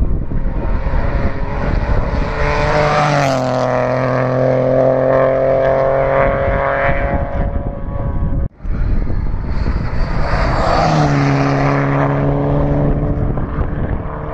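Two rally cars passing at speed one after the other, each engine note dropping sharply in pitch as it goes by. The sound breaks off briefly about eight and a half seconds in, between the two.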